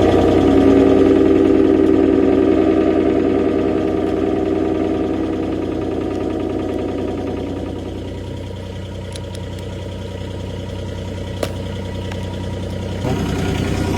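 An engine idling steadily, louder at first and easing off after about eight seconds, with a single sharp click a little past the middle.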